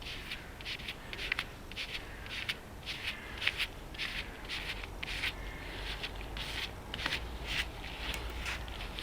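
Repeated short scraping, rubbing strokes by hand, in a steady rhythm of about three a second.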